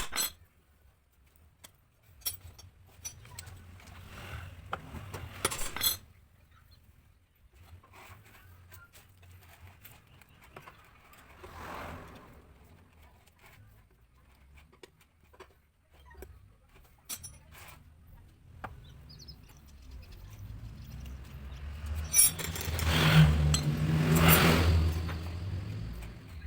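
Metal tools and engine parts clicking and knocking during work on a motorcycle engine. Near the end a motor vehicle passes, its low engine hum swelling and fading.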